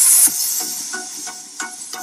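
Background music: a held chord fading over the first second or so, then a few short notes.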